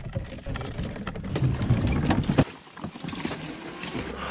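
Irregular knocks, rustles and low rumbling thumps from the camera being handled and bumped around a rigged fishing kayak, with wind on the microphone; the knocking eases about two and a half seconds in to a steadier rumble.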